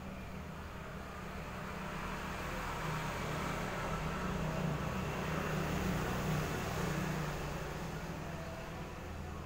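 Low, steady engine hum of a passing vehicle, growing louder to a peak around six seconds in and then fading.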